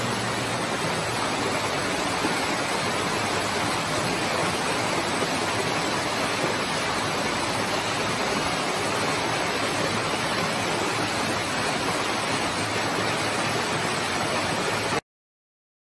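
Floodwater gushing out through a doorway and over the step in a heavy torrent: a steady rushing that cuts off suddenly near the end.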